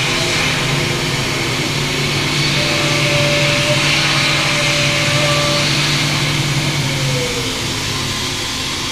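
CNC milling machine cutting an aluminum block under a cold air blast: steady spindle hum and hiss of the end mill working the center pocket. A higher tone is held for a few seconds in the middle, and about seven seconds in a tone glides down and the low hum drops away as the cut changes.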